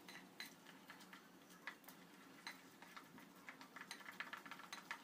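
Plastic spatula stirring thick besan batter in a glass bowl: faint, irregular clicks and scrapes against the glass, coming faster over the last second or so.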